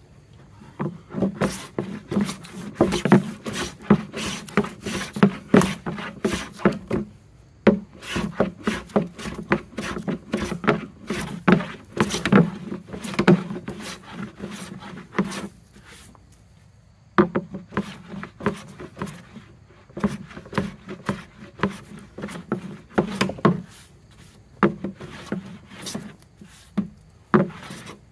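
Hand bench plane (a No. 5 jack plane) taking light shavings off a wooden board in a series of quick, repeated strokes. There are two brief pauses, one about a quarter of the way through and one a little past halfway.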